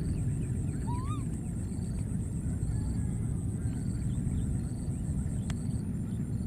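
Steady low rumble of wind on the microphone, with faint scattered bird chirps and one short rising call about a second in.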